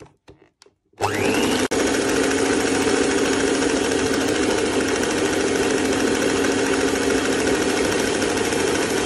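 Electric mixer with twin wire beaters whisking eggs and sugar for a cake batter. It starts about a second in with a quick rising whine as the motor spins up, then runs steadily and loudly.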